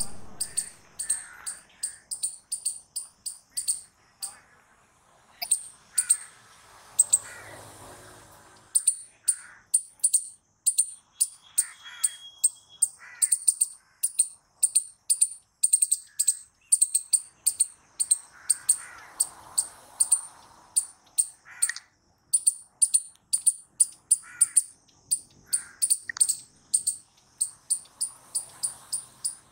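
Palm squirrel calling: a long run of sharp, high-pitched chirps, about two to three a second, breaking off briefly about four seconds in.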